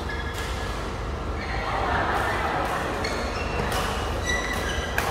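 Badminton rally: several sharp racket-on-shuttlecock hits, with short high squeaks of shoes on the court mat, echoing in a large hall.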